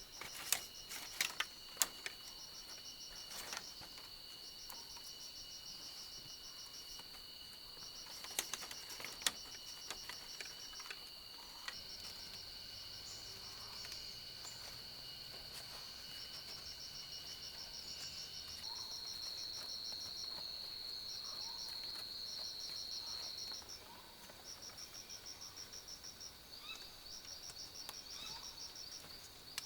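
A chorus of insects: steady high-pitched buzzing trills overlaid with repeating bursts of fast pulsed chirps, one trill stopping and another taking over about two-thirds of the way through. A few sharp clicks or knocks stand out in the first third.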